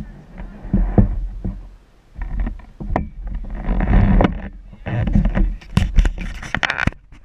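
Handling noise and wind rumble on an action camera's microphone as the camera is moved and set down: irregular rumbles with scattered knocks and scrapes.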